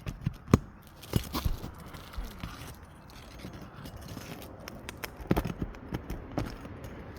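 Asphalt roof shingles being pried up with a metal hand tool to break their seals: scraping with a series of sharp clicks and knocks, several of them loud.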